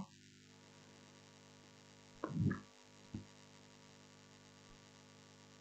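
Near silence: a faint steady hum on the recording, broken once by a brief soft sound a little over two seconds in.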